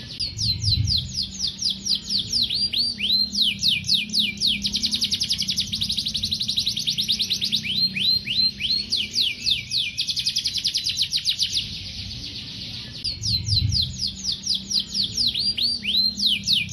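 Domestic canary singing a long song of rapid trills: runs of quick downward-sweeping notes, many a second, with a short lull about twelve seconds in.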